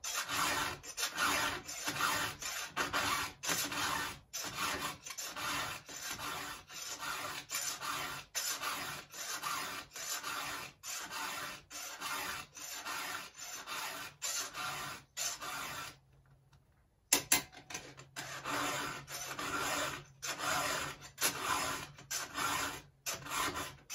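Hand file rasping across the cutter teeth of a chainsaw chain, in quick repeated strokes at about two a second, with a brief pause about two-thirds of the way through. The chain being sharpened is a worn-out one, its cutters filed well back.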